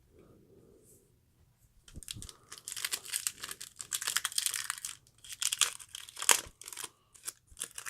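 Foil trading-card pack wrapper being torn open and crinkled, starting about two seconds in as a run of crackling bursts.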